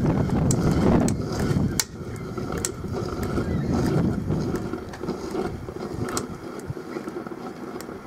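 Drip coffee maker wired to 480 V with its thermal overloads bypassed, sputtering and crackling as its overpowered heating element works on the water. The loud noise drops off abruptly about two seconds in, leaving scattered crackles and pops.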